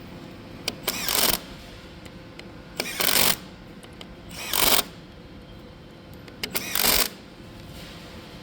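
A power driver running the hand-started roller-cap bolts home in four short bursts of about half a second each, each with a small click just before.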